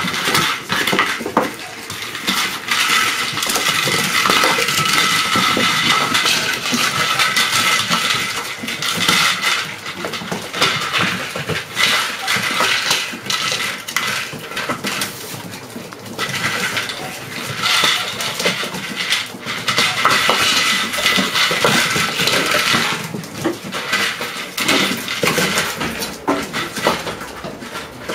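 Several puppies playing on a wooden parquet floor: claws clicking and scrabbling on the wood and toys knocking about, with high-pitched puppy whining coming and going.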